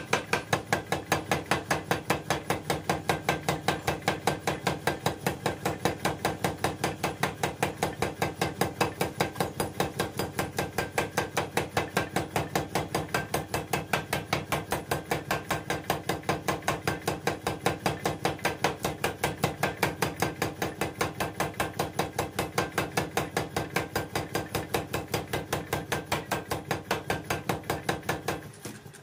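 30 kg power hammer pounding a sickle blade held in tongs on its anvil die: a rapid, steady train of metallic blows at about four a second, broken by a brief pause near the end.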